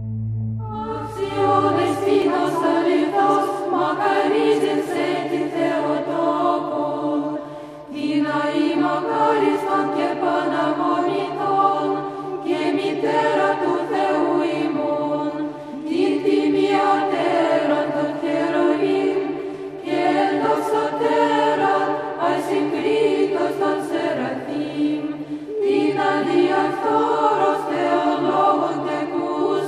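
Background choral music: a choir chanting in phrases of about four seconds over a sustained low drone note.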